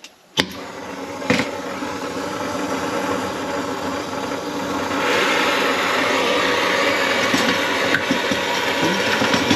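Brazing torch flame hissing steadily as it heats a copper refrigerant line joint for silver brazing, after a sharp click just after the start; the hiss grows louder about five seconds in.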